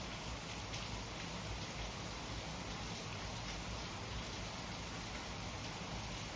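Steady rainfall: an even hiss of rain with faint drop ticks.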